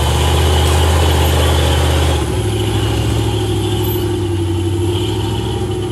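Rock buggy's engine running hard under load as it climbs a steep rock slope. It drops to a lower, steadier level a little past two seconds in.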